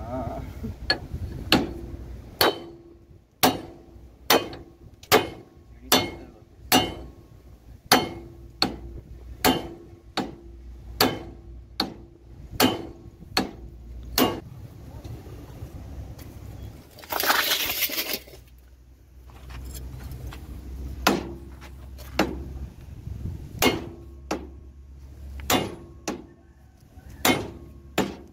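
Hand hammer striking a steel tool held on the kingpin of a truck's steering knuckle, a steady series of blows about one every 0.8 seconds, each with a short metallic ring. The blows pause for several seconds midway, where a brief harsh rasping noise is heard.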